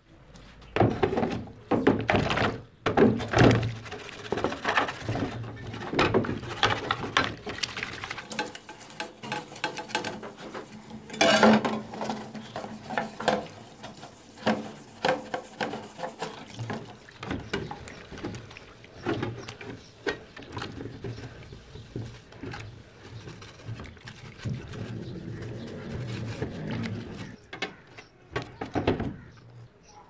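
Fan parts being scrubbed in a plastic tub of soapy water, first with a wire brush and then with a scouring pad: irregular scrubbing strokes and splashes with occasional knocks against the tub. The strokes are loudest in the first few seconds and again near the middle.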